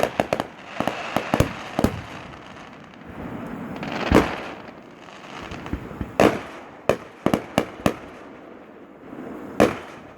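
Fireworks display: a series of sharp bangs from bursting shells at irregular intervals, some in quick clusters of smaller pops, with a hissing haze between the bursts.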